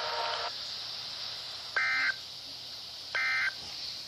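Two short, identical bursts of digital data tone from a NOAA Weather Radio receiver, each about a third of a second long and about a second and a half apart, over radio hiss. They are the EAS/SAME End-of-Message bursts that close the weekly test.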